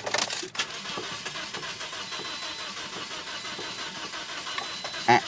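Starter motor cranking the engine of a 2009 Toyota Matrix steadily without it firing: a crank-no-start, which the mechanic suspects comes from low compression.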